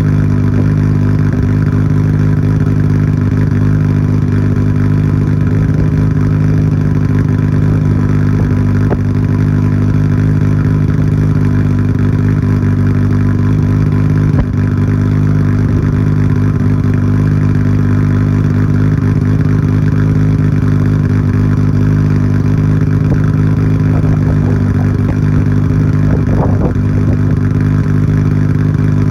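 Nissan Skyline GT-R R34's RB26 twin-turbo straight-six, fitted with 272° JUN cams, idling steadily after a cold start. It runs through a Tomei Expreme Ti titanium exhaust with its bolt-in silencer fitted, and the pitch and level hold steady with no revving.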